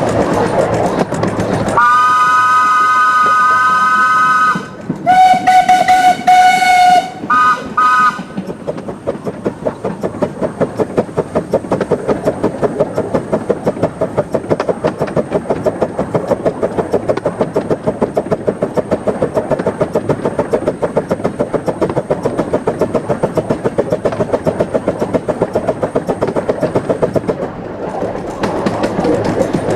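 Krupp 4-6-2 Pacific miniature steam locomotive whistling: a long chord-like blast, then a lower-pitched blast and two short toots. It then runs on with a quick, steady rhythmic beat.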